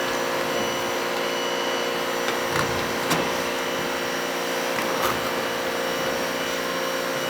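Electric power tool running steadily, with a few faint scrapes over it, as paint is worked off the bus bodywork.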